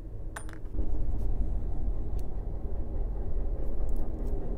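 A steady low rumble that starts about a second in, with a few light clicks from small metal hot-end parts, a heater block and screws, being handled.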